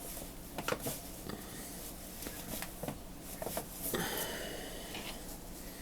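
Faint handling sounds of a rag wiping grease and grime from an opened vintage ratchet head: scattered light clicks and ticks of small metal parts, with a brief rubbing scrape about four seconds in.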